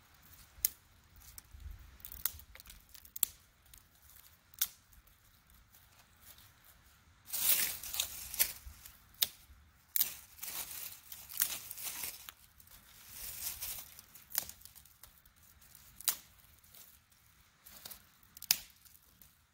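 Dry twigs being snapped by hand into kindling: a scattered series of sharp cracks, with stretches of rustling and scraping as the sticks are handled and broken, among dry leaves.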